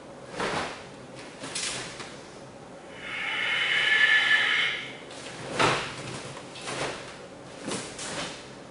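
Karate kata movements: the cotton gi snaps and swishes with each sharp strike and turn, and bare feet brush and stamp on the mats, in a handful of short separate strokes. From about three seconds in, a drawn-out hiss swells for about two seconds during a slow arms-raised movement.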